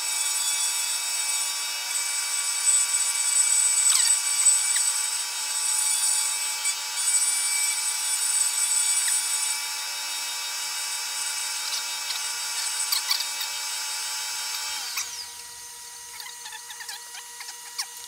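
Milling machine running with a steady high whine while its cutter mills a block of wood, with a rough cutting noise and scattered ticks. Near the end the sound drops and thins, and the machine keeps running more quietly.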